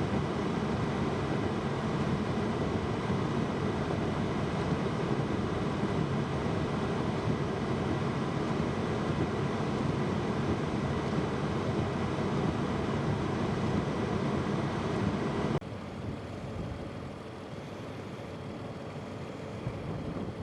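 Steady rush of blizzard wind buffeting the microphone, with a deep rumble. It drops suddenly about three-quarters of the way through to a quieter, similar wind noise.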